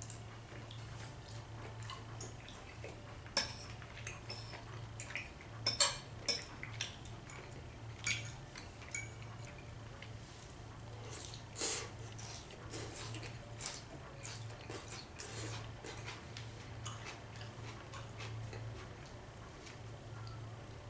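Knife and fork clinking and scraping against a ceramic plate while a steak is cut and eaten: scattered clinks, the loudest about six seconds in, over a steady low hum.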